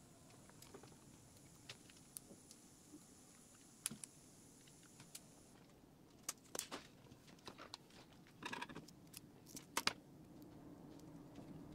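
Faint handling noises of fitting laptop thermal pads by hand: scattered small clicks, ticks and crinkles of the pads' plastic backing film, busier in the second half, with a short rasp about eight seconds in.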